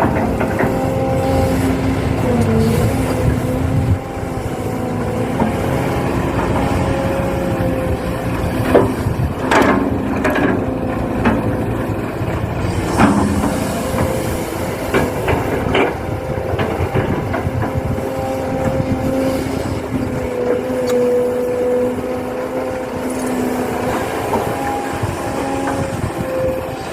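Radio-controlled model excavator running, a steady motor whine that wavers slightly in pitch as it works. A few sharp knocks come about nine, ten and thirteen seconds in.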